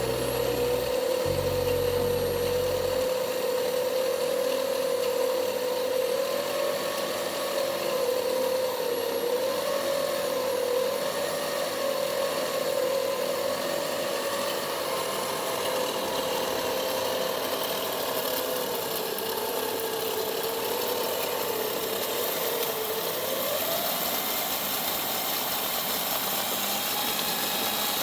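A small power tool's electric motor running steadily, its pitch wavering slightly as if under changing load, then rising to a higher speed near the end.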